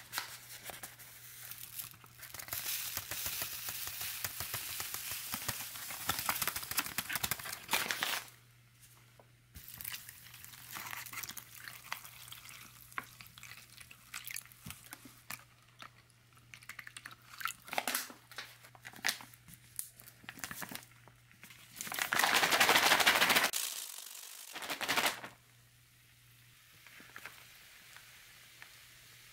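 Clear plastic zip-top beverage bag crinkling and rustling as it is handled, with lemon-lime drink powder and then water inside. About 22 seconds in comes a loud noisy burst of a second or so, then a shorter one, as the bag is shaken to mix the drink.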